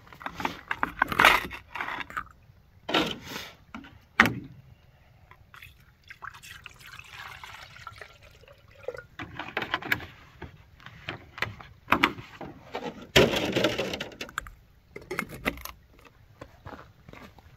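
Water poured into a stainless steel kettle, filling it, with sharp metal clanks and knocks from the kettle's lid being taken off in the first few seconds and put back on near the end.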